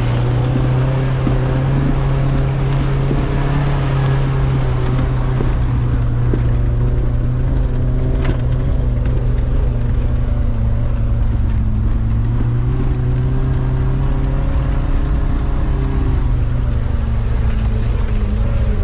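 Off-road 4x4's engine running hard under load at fairly steady revs, its pitch sagging and picking back up a couple of times as it works up a muddy climb.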